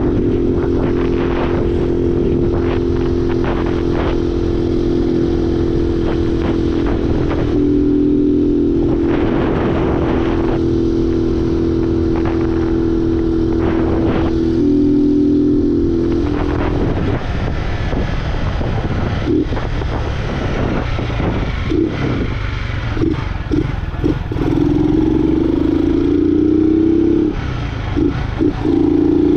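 Honda Fan 125's single-cylinder four-stroke engine, air filter removed, pulling the bike along with a steady drone that steps in pitch twice. Around the middle it drops to an uneven, broken running with short blips, then pulls strongly again near the end. Wind noise and clatter sit underneath.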